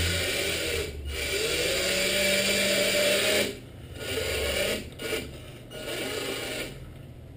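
Electric drive motor and gears of a 1/14-scale RC Scania 6x4 truck whining as it drives, the pitch rising and falling with the throttle. The long run stops about three and a half seconds in, followed by three shorter bursts of throttle.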